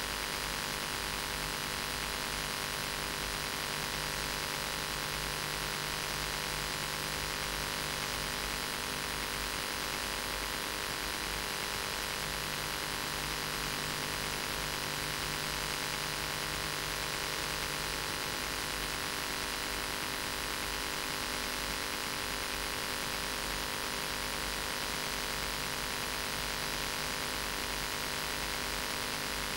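Steady hiss and electrical hum with many fixed tones, unchanging throughout, with no speech or other events.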